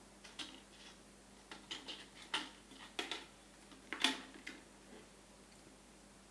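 Plastic cat toy, a Catit Design Senses labyrinth, clattering and clicking as it is handled or played with. It makes a string of irregular light knocks and taps, loudest about four seconds in, then stops about five seconds in.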